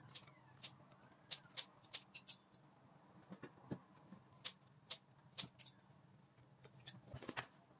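Kitchen scissors snipping through a cooked beef patty, with a metal fork clicking against a glass container: a dozen or so faint, short, irregular snips and clicks.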